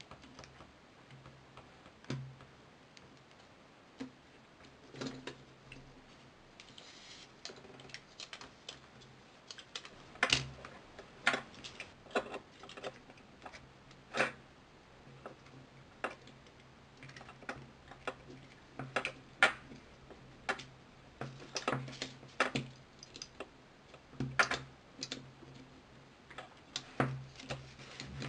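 Irregular sharp clicks and taps of plastic phone parts as a replacement LCD display is pressed and snapped into a ZTE Skate Pro's frame by hand, growing louder and more frequent about a third of the way in, over a faint steady low hum.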